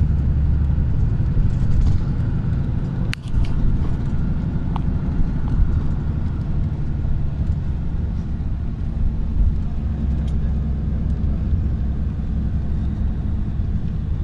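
Steady low rumble of a moving road vehicle, engine and tyre noise. A brief click comes about three seconds in.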